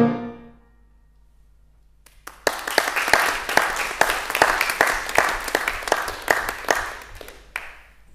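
The last chord of a tuba-and-piano piece dies away. After a short quiet, the audience applauds for about five seconds, and the clapping fades out near the end.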